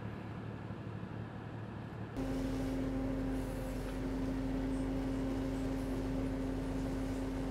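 Fishing boat's engine running steadily, heard from inside the wheelhouse as a constant drone with a strong steady tone. Before that, about two seconds in, a quieter steady low hum cuts straight into it.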